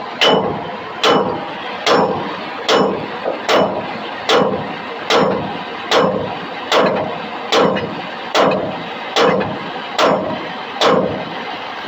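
Steady, heavy hammer blows on steel, about fourteen strikes at roughly one every 0.8 seconds, each with a short metallic ring, over a steady background hum. The steel being struck is a seized wheel bearing being driven off a trailer spindle.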